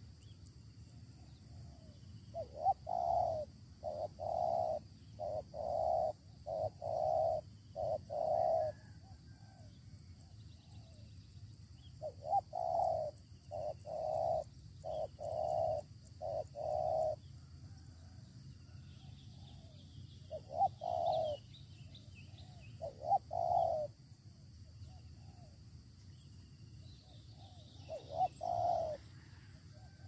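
Spotted dove cooing in low, repeated coos: a run of about seven notes, a second run of about six, then shorter phrases of one or two. Small birds chirp faintly behind it.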